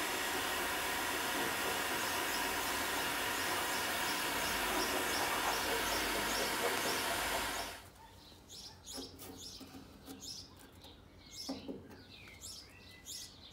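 Electric heat gun blowing steadily as it softens underseal on a car's inner wing; it cuts off about eight seconds in. After that, birds chirp over a quiet background.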